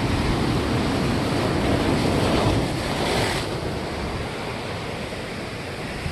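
Ocean surf breaking on a beach, a steady wash that swells about two to three seconds in and then eases off, with some wind noise on the microphone.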